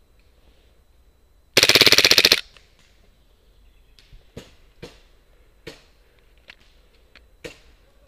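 Airsoft gun firing one short full-auto burst of rapid, evenly spaced shots, close by and loud, lasting just under a second about a second and a half in. A few scattered single sharp pops or clicks follow later on.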